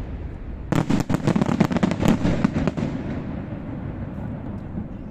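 Aerial fireworks bursting overhead: a rapid string of bangs and crackles begins just under a second in and lasts about two seconds, then dies away to a low rumble with a few scattered cracks.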